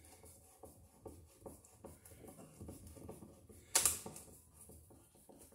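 A hand screwdriver driving a screw through a metal electrical box into wood: a string of small creaks and clicks as it turns, with one sharp clack a little under four seconds in.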